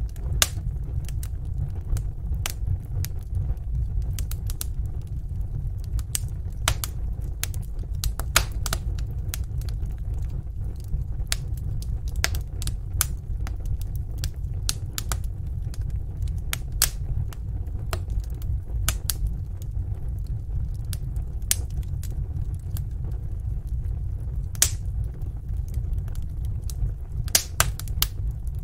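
Wood fire in a fireplace crackling: irregular sharp pops and snaps, a few louder ones near the end, over a steady low rumble.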